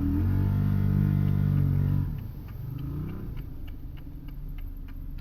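A Can-Am Maverick Sport XMR side-by-side's engine runs loud at a steady speed for about two seconds, then drops off sharply to a lower running sound. Scattered light ticks follow.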